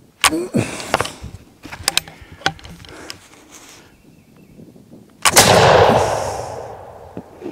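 A 20 gauge smoothbore percussion muzzleloader firing a black-powder load of loose shot: one loud boom about five seconds in, trailing off over about two seconds. A few sharp clicks come before it.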